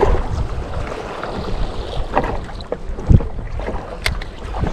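Wind buffeting the microphone and small waves slapping the hull of a small boat at sea, with a louder knock about three seconds in.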